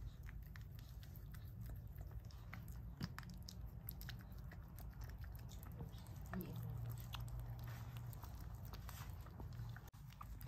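Toy poodle mother licking and chewing at her newborn puppy: faint, irregular wet mouth clicks and smacks over a low steady hum.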